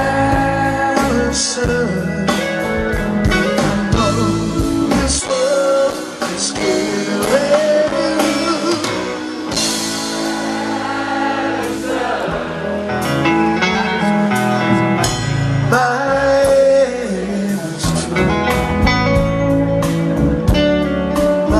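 Live rock band playing loudly: a man singing over electric guitar, bass guitar and drums.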